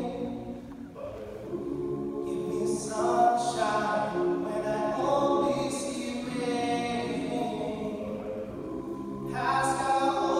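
All-male a cappella group singing in close harmony, voices only with no instruments, dipping briefly about a second in before swelling again.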